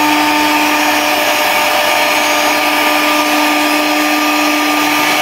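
CNC router spindle running at a steady high whine while its bit mills a hardwood cutting board, with the hiss of the cut under it.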